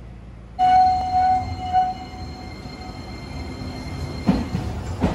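Iyotetsu 2100-series low-floor streetcar passing close by. A loud, steady ringing tone starts suddenly and fades over a couple of seconds, over the tram's running rumble. Two sharp clunks near the end come from the wheels on the track.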